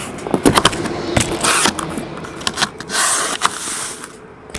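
Cardboard case and scissors being handled on a table: a string of clicks and light knocks, with two short scraping rustles, about a second and a half in and again about three seconds in.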